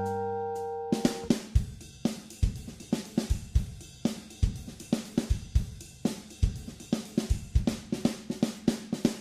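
Background music: a held chord fades out about a second in, then a drum-kit break plays alone, with kick, snare and hi-hat in a steady beat.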